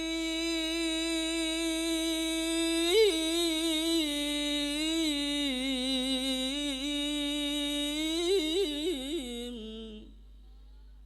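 A male Qur'an reciter's unprocessed voice, with no added echo, holding the word "ar-Rahim" of the basmala in one long melodic note. It lifts about 3 s in, wavers through ornamental turns near the end, and fades out about 10 s in.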